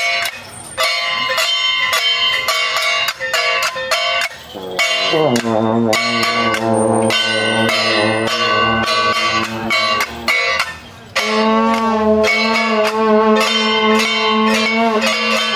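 Clanging metal procession percussion, then long brass procession horns (shaojiao) blowing: one note slides down about five seconds in and is held, and a second long note is held near the end.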